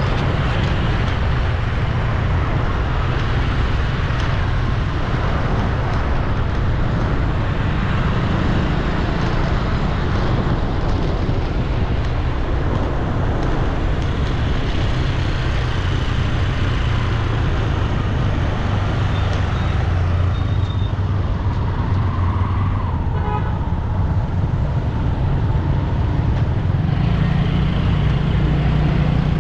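Steady city road traffic, a continuous wash of vehicle engines with a low rumble. A short horn toot sounds about three-quarters of the way in.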